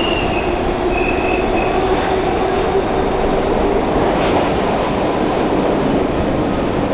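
R42 subway train pulling out of an underground station, running past at close range with a loud steady rumble and rattle of wheels and cars. A couple of brief high squeals come from the wheels in the first two seconds.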